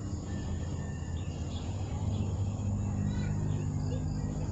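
Outdoor ambience: a steady low hum, with scattered faint high chirps.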